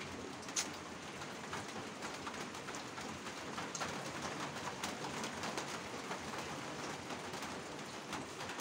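A steady patter of noise with many small scattered clicks.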